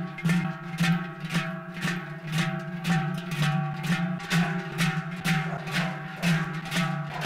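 Large cowbells tied to the backs of a group of joaldunak clanging together as they walk in step: a steady rhythm of about three clangs a second over a ringing low tone.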